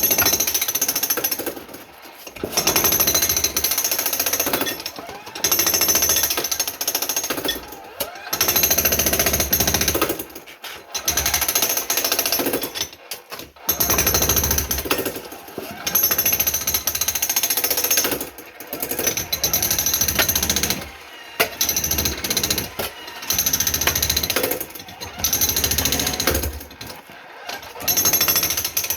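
Jackhammer breaking up a concrete basement floor, running in repeated bursts of one to two seconds with brief pauses between them.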